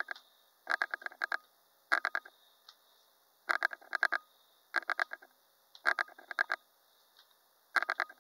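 Computer mouse scroll wheel rolled in short flicks: quick runs of several sharp clicks, about one run a second.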